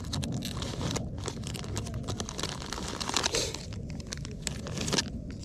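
Plastic soft-bait packets crinkling as hands rummage through a fabric tackle bag, an irregular run of crackly rustles with louder crackles about three and five seconds in.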